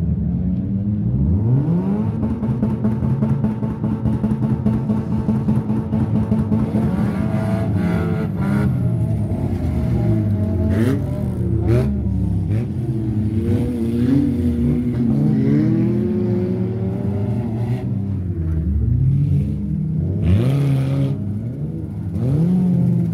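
Engines of several wrecked race cars revving hard on a mud track, their pitch rising and falling as they accelerate and ease off, overlapping one another.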